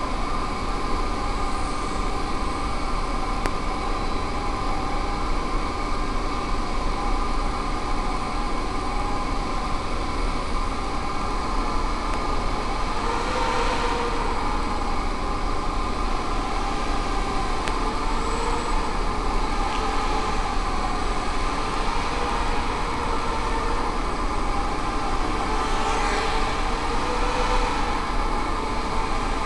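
Blade Nano QX micro quadcopter's motors and propellers buzzing steadily in flight, the pitch wavering up and down as the throttle changes.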